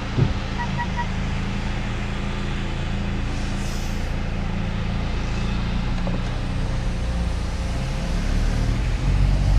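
Mercedes-AMG C43's 2.0-litre turbo four-cylinder idling, heard from inside the cabin as a steady low hum, with three short electronic beeps about half a second in. The low hum grows louder near the end.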